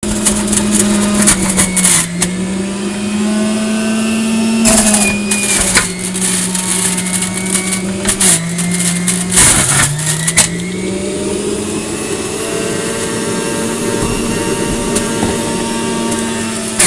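Electric centrifugal juicer running on beets and carrots: a steady motor whine that sags in pitch several times under load and picks back up, with loud bursts of grinding as vegetables are fed onto the spinning cutter.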